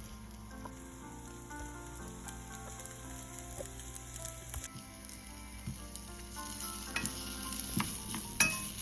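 Onion, garlic, ginger and tomato paste sizzling as they fry in olive oil in a pan. A spoon stirs the pan, with a few sharp taps against it toward the end.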